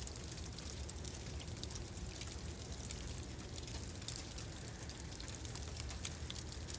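Sleet falling: a dense, steady patter of many fine, sharp ticks over a low, steady rumble.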